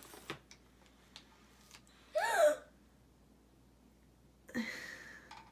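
A young girl's short excited wordless exclamation, rising then falling in pitch, about two seconds in, followed near the end by a breathy gasp. There are a few faint clicks at the start.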